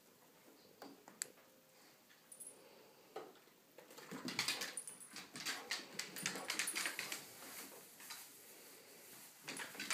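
Basset hound's claws clicking and skittering on a hard floor as it chases a laser dot, with scuffling; only a few clicks at first, getting busy from about four seconds in.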